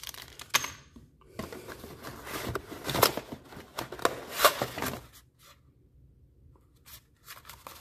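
Paper and cardboard packaging being handled: a paper packet of screws crinkling, then a small cardboard box scraping and rustling as it is slid out of its packaging, with sharp rustles and light knocks. The handling stops for about two seconds and starts again near the end.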